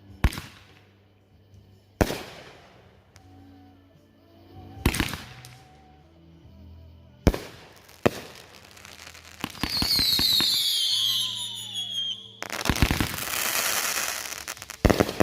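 Inferno consumer firework cake firing: single sharp bangs every couple of seconds, then several whistles falling in pitch about ten seconds in, followed by a dense crackling barrage and a few more bangs near the end.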